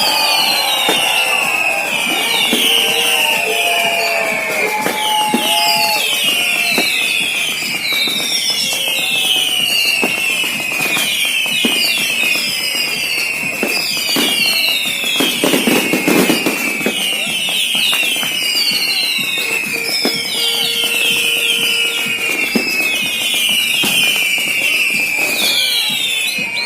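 Whistling fireworks: a continuous stream of overlapping high whistles, each falling in pitch, over scattered crackles and pops, with crowd voices underneath.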